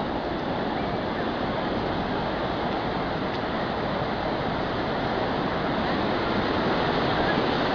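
Sea surf washing onto a beach: a steady rush of waves that swells a little toward the end.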